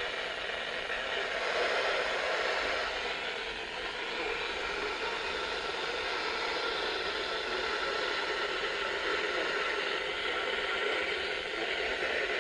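Steady hiss of radio static from a weather radio receiver, with no voice coming through.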